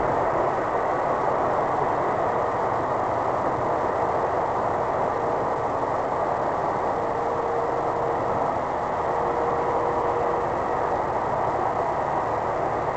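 Steady road and engine noise inside a car cruising at motorway speed: an even, unbroken rush of tyre and wind noise.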